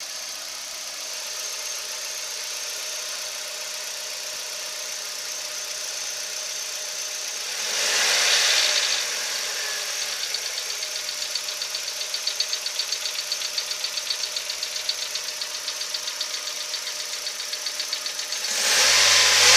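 Kia Rio (JB) petrol engine idling with a rapid, even ticking, the engine ticking of unknown cause that the owner is asking about. It is blipped briefly about eight seconds in, and the ticking stands out clearly at idle afterwards before another rev near the end.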